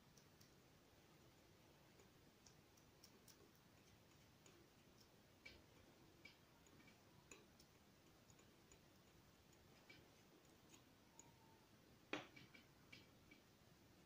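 Near silence with faint, scattered ticks of a metal palette knife working oil paint on paper, and one sharper tap about twelve seconds in.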